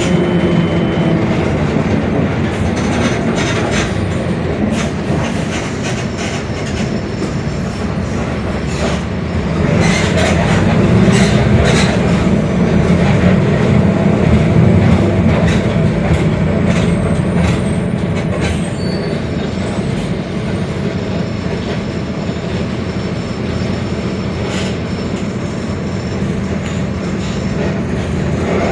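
Mercedes-Benz OF-1721 BlueTec 5 diesel city bus under way: a steady engine and drivetrain drone with frequent body rattles. It grows louder about ten seconds in and eases off again. The differential growls.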